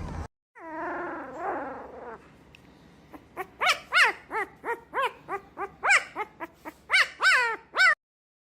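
A dog whining twice with a falling pitch, then yipping in a quick run of short, high yelps, about three a second, that cuts off suddenly near the end.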